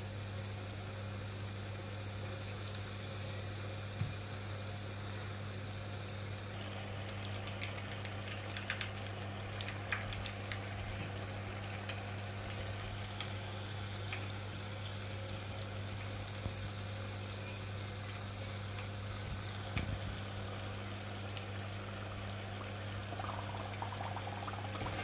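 Small jaggery and rice-flour fritters (ariyatharam) deep-frying in hot oil: a steady bubbling sizzle with scattered sharp crackles, which grow busier after the first few seconds. A steady low hum runs underneath.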